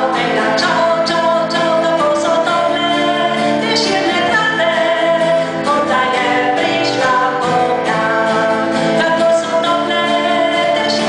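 A woman singing a song into a microphone while strumming an acoustic guitar, played live through a PA system.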